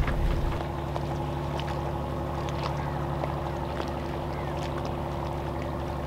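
Sailing catamaran's inboard diesel engine running steadily at low revs while manoeuvring, a drone made of several steady tones.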